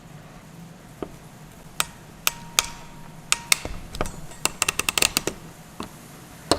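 Ratcheting crimping tool clicking: a few scattered clicks, then a quick run of about eight ratchet clicks as the handles close on a terminal, crimping it.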